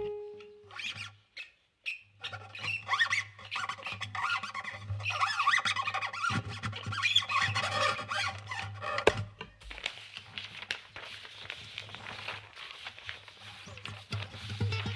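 Experimental music for guitar and handled library objects: a held guitar note dies away, then after a short pause a dense, irregular crackling of small clicks and rustles from objects being handled takes over.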